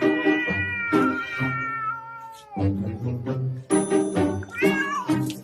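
A pet's long, drawn-out cry that bends down and fades out about two and a half seconds in, followed near the end by a shorter rising cry, over background music with a steady beat.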